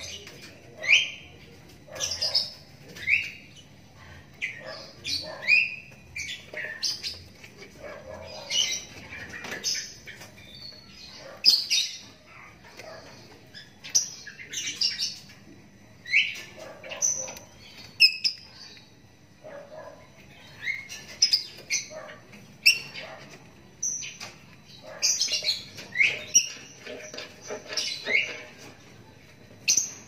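Young lovebird, about a month old, giving short, sharp chirping calls over and over, about one or two a second with brief pauses, each call a quick upward sweep.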